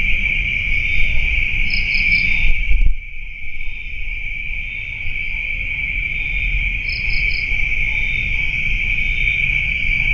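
Steady, high-pitched insect chorus, with a quick triple chirp twice over it. A low rumbling noise runs underneath and drops out briefly about three seconds in.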